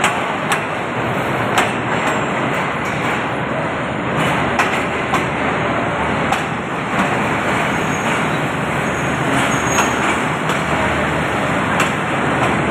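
Passenger coaches of an arriving train rolling slowly past a station platform, their wheels running on the rails with a steady rumble and scattered sharp clicks. A low hum comes in near the end.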